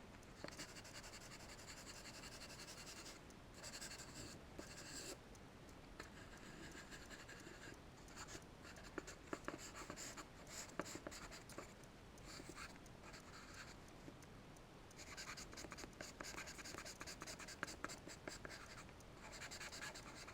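Charcoal scratching on drawing paper in runs of strokes, faint, with brief pauses between runs.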